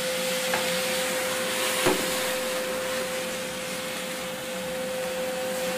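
Cognac flaming over sea scallops in a hot pan of fat: a steady rushing hiss of sizzle and flame, with a faint click about half a second in and a sharp tap just before two seconds. A steady hum runs underneath.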